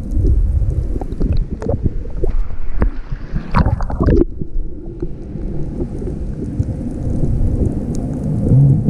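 Water sloshing and rumbling against an underwater camera held just below the surface while snorkeling, with scattered crackles. About three and a half seconds in comes a short burst of splashing and bubbling as the camera nears the surface.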